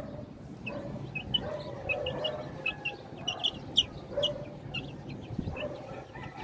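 Young chickens peeping in a wire-mesh cage: a steady run of short, high chirps, about three a second.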